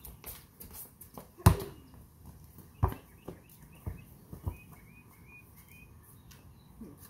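A basketball bouncing on the driveway, a handful of irregular thumps, the loudest about a second and a half in. Birds chirp faintly in the background in the middle of it.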